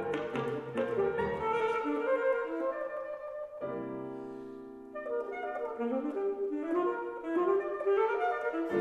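Alto saxophone and piano playing a fast classical duo passage. Partway through, the running notes stop and a held chord rings and fades for about a second and a half before the quick playing picks up again.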